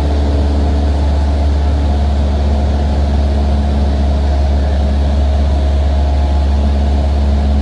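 Steady, loud drone of the aircraft's engine, heard from inside the cabin, with a deep low hum and several steady tones above it.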